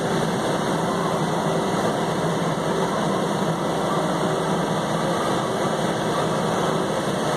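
John Deere 3720 tractor's diesel engine running steadily while mowing with a bush hog rotary cutter, heard from inside the cab.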